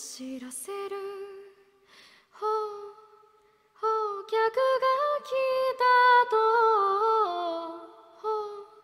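A woman singing a cappella in Japanese with no accompaniment: the slow, held 'hoo-hoo' owl-call line of the song, in two phrases with short pauses between them.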